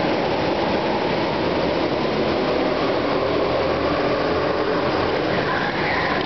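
Several go-karts running laps in a large indoor hall, their engines making a steady, continuous drone with no breaks. One kart passes close by near the end.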